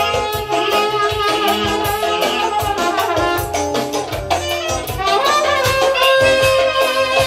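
Brass band playing lively dance music: saxophone and trumpet carrying the melody over a steady drum beat.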